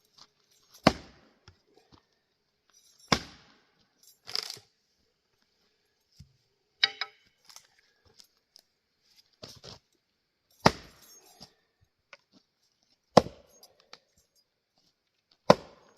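Axe blows splitting Douglas fir rounds on a chopping block: six sharp cracks of the bit biting and the wood splitting, about every two to three seconds, with lighter knocks of wood in between.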